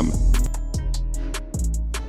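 Background music with a beat and a steady bass line.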